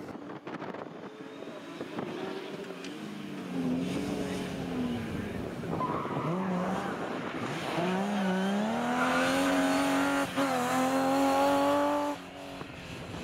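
BMW E36 rally car engine accelerating hard toward the listener. The pitch climbs, drops around the middle, then climbs again to a steady high-rev note that gets louder, has a brief break about ten seconds in, and cuts off suddenly near the end.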